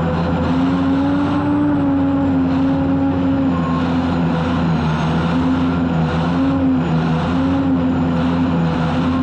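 Unlimited hydroplane's Lycoming T55 turbine engine running, heard from the cockpit: a steady droning tone that rises and falls slightly over a continuous rushing noise.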